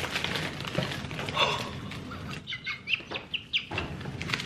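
Plastic snack wrappers rustling and crinkling as packages are handled in a cardboard box, then a quick run of short, high-pitched squeaks a little past halfway.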